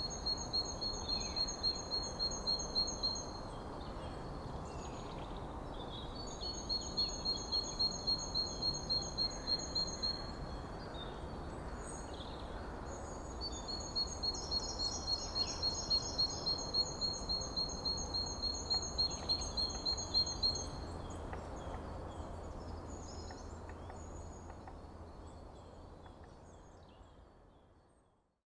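A songbird singing three bouts of rapid, evenly repeated high notes at two pitches, about three notes a second, over a steady low background rumble. Everything fades out near the end.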